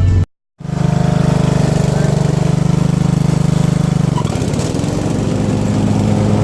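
Small gasoline lawn mower engine running steadily. Its note shifts lower about four seconds in. The sound drops out for a moment just after the start.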